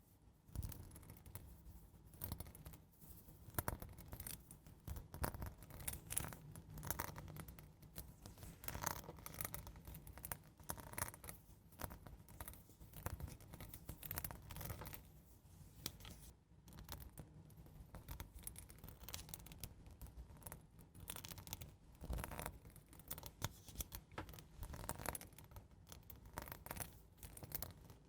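Gentle, slow scratching on a surface: a run of short, irregular scrapes and strokes, faint.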